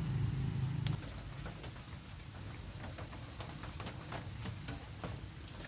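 Scattered crackles, pops and clicks from a wood cooking fire being tended and fed with sticks, with one sharp pop just under a second in. A low steady hum stops about a second in.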